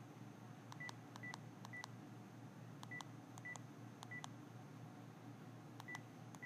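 Panasonic KX-TGM450S cordless phone handset keypad being pressed: about eight faint button clicks, each with a short high key-tone beep, in uneven groups as a phone number is keyed in before pressing talk.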